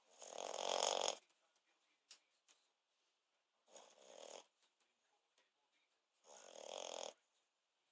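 French bulldog snoring in its sleep: three snores about three seconds apart, the first the loudest and longest.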